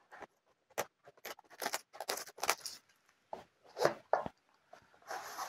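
Packaging handled during an unboxing: clear plastic wrap crinkling and a product box sliding out of its sleeve, in short, irregular rustles and scrapes, with a longer hissing rustle near the end.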